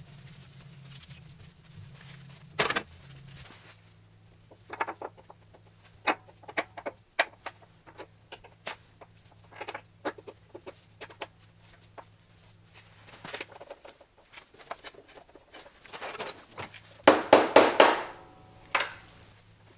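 Scattered clicks and knocks of hard parts and tools being handled, over a steady low hum. Near the end comes a quick run of about five loud metallic strikes with a brief ring, then one more knock.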